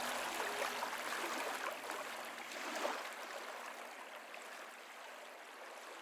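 Water sounds, a rushing, splashing haze with small crackles, fading out steadily over the last few seconds.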